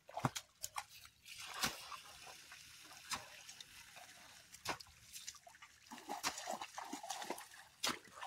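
Bare feet squelching and splashing through mud and shallow water, with scattered irregular sharp slaps and clicks.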